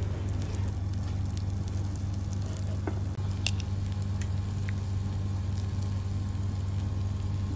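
Chicken wings, mushrooms and an egg sizzling on a hot grill plate, with scattered small pops and crackles over a steady low hum.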